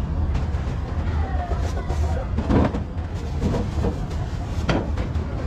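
Street background noise: a steady low rumble like passing traffic, with a couple of sharp knocks near the middle and end.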